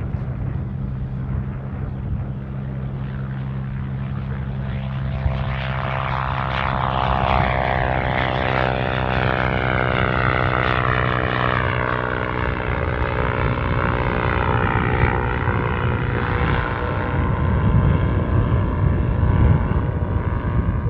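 Single-engine pusher-propeller ultralight motor glider taking off, its engine at steady full power through the take-off roll. From about five seconds in, a propeller buzz grows louder and its pitch sweeps down as the aircraft climbs out past the microphone.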